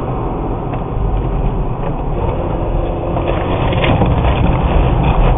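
Peugeot 107 driving on a wet road, heard from inside the cabin through a dashcam microphone: steady engine and tyre noise with a few faint ticks, growing a little louder toward the end.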